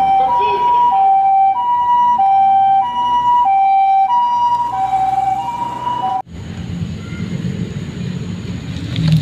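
Two-tone hi-lo ambulance siren, switching between a lower and a higher note about every half second. It cuts off suddenly about six seconds in and gives way to a low rumbling noise.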